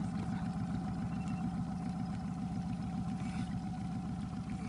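Small boat outboard motor idling steadily, its even running hum unchanged throughout.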